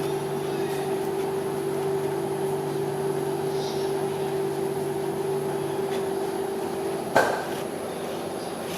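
Steady mechanical hum with a single sharp metal clank just after seven seconds in, typical of a metal spatula striking the rolled-ice-cream cold plate.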